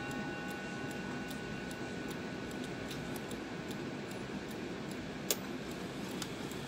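Hermle 340-020 mantel clock movement ticking steadily on a post-repair test run, with the last faint chime tones dying away at the start. One sharper click comes a little past five seconds in.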